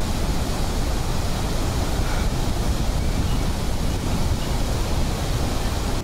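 Floodwater rushing through a dam's open spillway gates: a loud, steady rush of falling water with no pauses.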